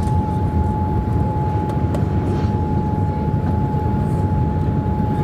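Boeing 787 Dreamliner's engines at takeoff thrust heard from inside the cabin during the initial climb: a steady, loud roar with a thin steady whine held above it.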